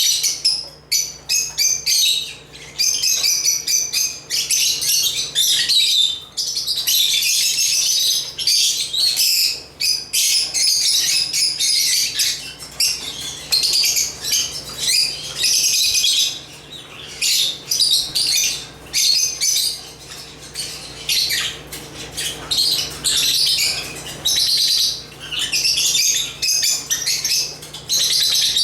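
Several lovebirds chattering and chirping together in fast, high-pitched, near-continuous runs with only brief pauses.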